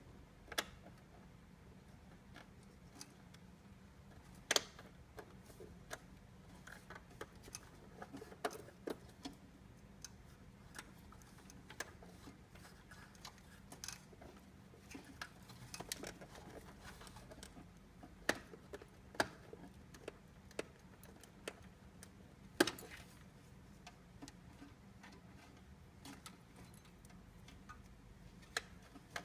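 Irregular light clicks and taps of small hard parts being handled, a few sharper ones scattered through, over a low steady hum.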